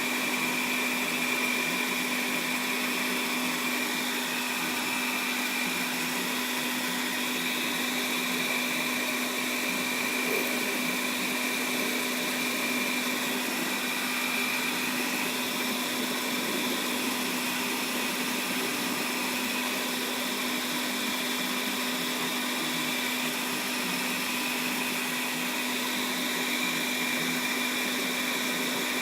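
Metal lathe running at a steady speed: an even motor whine that holds without pause.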